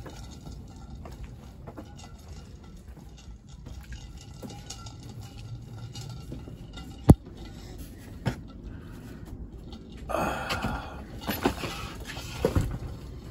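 Steady low background rumble with scattered handling noises: one sharp click about seven seconds in, then rustling and a few knocks in the last three seconds.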